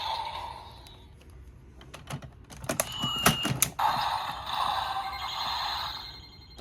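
Plastic clicks and clacks as the DX Gavv driver transformation belt toy and its Gochipod item are worked by hand, with a short high beep about three seconds in.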